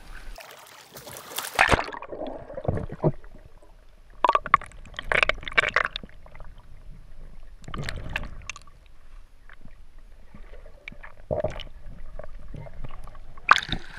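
Water sloshing and splashing around a swimmer's action camera as it goes under the surface: a loud splash about a second and a half in, then irregular bursts of water noise while it is submerged, and a second splash near the end as it comes back up.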